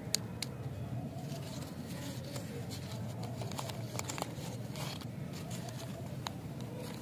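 Foil-and-paper wrapper of a lollipop crinkling as it is peeled off by hand, in scattered small crackles that are busiest about four to five seconds in. Under it runs a steady low background noise.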